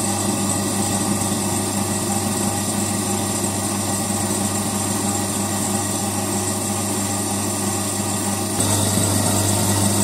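Electric vacuum pump running with a steady hum, evacuating a sealed glass jar of hot water as the vacuum builds. About eight and a half seconds in, the sound gets abruptly louder.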